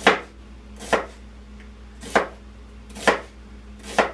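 Kitchen knife chopping an onion on a cutting board: five sharp knocks of the blade on the board, about one a second.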